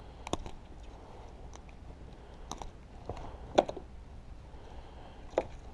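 A few scattered sharp clicks and light knocks of fishing gear being handled in a kayak, the loudest about three and a half seconds in.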